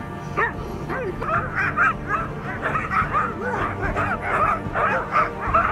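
A harnessed sled-dog team of Siberian huskies and husky crosses yelping and whining over one another. The short, rising-and-falling cries thicken into a dense chorus after about a second.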